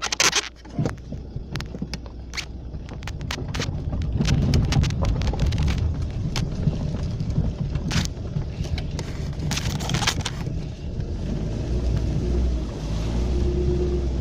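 A VAZ-2110 (Lada 110) car being driven across a muddy field, its engine running with a low rumble that builds a few seconds in, with frequent sharp knocks and clatters throughout.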